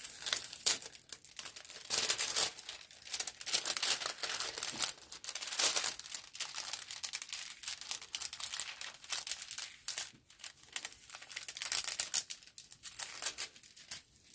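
A plastic-covered diamond painting canvas being handled and unfolded, crinkling and rustling irregularly.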